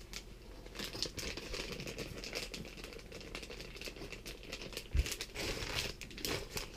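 Plastic fishing-lure packaging crinkling and crackling as it is handled, with a single thump about five seconds in.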